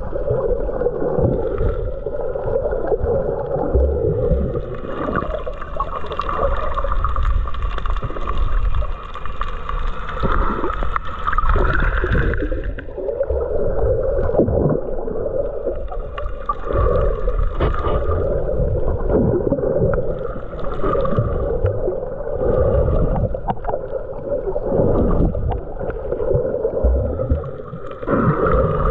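Water sloshing and gurgling around a snorkeler's camera, over a steady low rumble.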